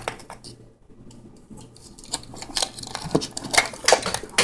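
A measuring spoon tapping and scraping against a container as taurine powder is scooped out and measured: scattered light clicks and scrapes, more of them in the second half.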